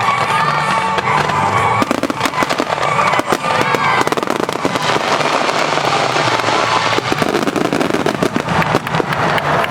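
Aerial fireworks bursting in a dense barrage, with many sharp cracks and crackling pops in quick succession starting about two seconds in. Music plays underneath.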